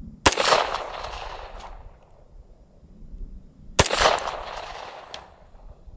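Two shots from a Springfield Armory LAV Master Class 1911 in .45 ACP, about three and a half seconds apart, each a sharp crack followed by an echo that trails off over a second or so.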